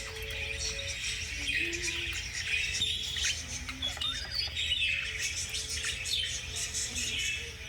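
Budgerigars chattering: a continuous stream of short chirps and warbles.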